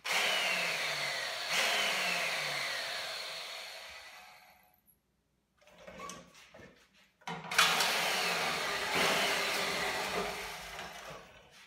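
Angle grinder with a wire wheel brushing rust and grease off a steel vehicle frame, in two runs. In the first its whine falls in pitch twice and it runs down to a stop about five seconds in; it starts again about seven seconds in and runs until near the end. The grinder is a constant-on type with no trigger, and the wheel tends to grab the work.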